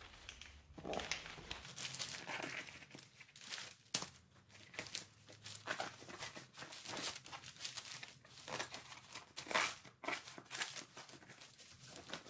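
Rubber inner tube being pushed by hand in between a minivelo bicycle's rear rim and tire, making irregular rubbing, scuffing and rustling noises.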